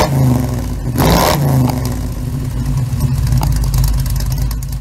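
An engine revving: a sharp surge of revs at the start and another about a second in, then running steadily until it cuts off suddenly near the end.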